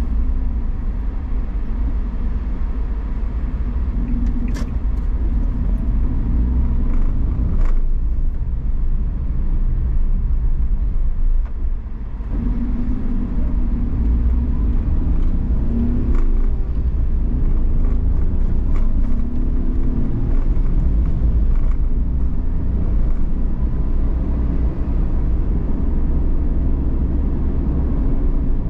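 Car driving: a steady low rumble of engine and road noise. About twelve seconds in, the noise dips briefly, then the engine note rises again. A few faint clicks.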